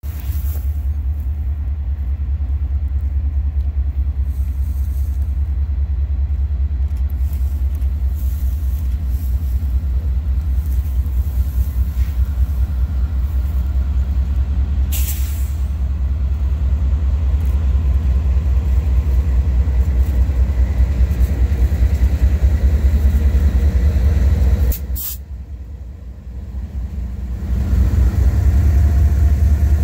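Steady low rumble as a CN freight train approaches, its diesel locomotives running, with a brief drop in level just before the end. Near the end the lead unit, a GE Dash 8 cowl locomotive, reaches the listener and the engine rumble grows louder.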